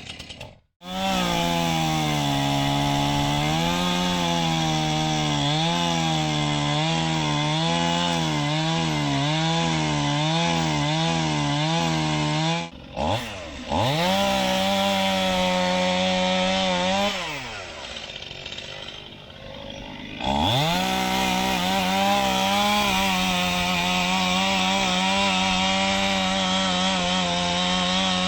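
Chainsaw running at high revs cutting into wood, its engine note dipping and recovering in a regular rhythm. About halfway through it briefly drops out, slows and runs quieter for a few seconds, then comes back up to full speed and runs steadily.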